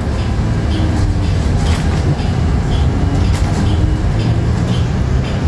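Inside a New Flyer XE40 battery-electric bus driving: steady low road rumble and rattling from the cabin, with faint electric-drive tones and a light tick repeating about twice a second.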